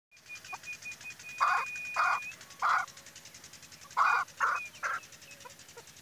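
Chukar partridge calling: six loud, harsh notes in two groups of three, then a few fainter ones. A thin high whistle sounds in short dashes and then holds for about a second under the first group.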